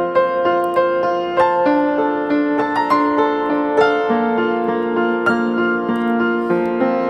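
Background piano music: sustained notes and chords struck in a gentle, even rhythm.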